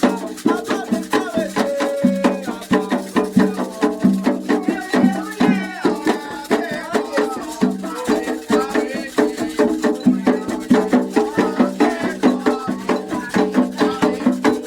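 Candomblé ritual music for Xangô: a fast, steady beat of drums and rattles under wavering sung lines.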